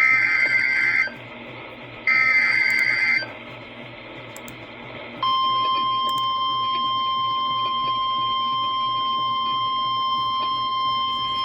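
Emergency Alert System SAME header on a NOAA Weather Radio broadcast: two one-second bursts of buzzing data tones a second apart. About five seconds in, the steady 1050 Hz warning alarm tone starts and holds, announcing a new warning.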